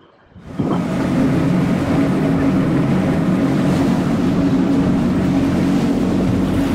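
Boat engine running steadily with a low hum, over rushing water and wind noise; it cuts in abruptly about half a second in.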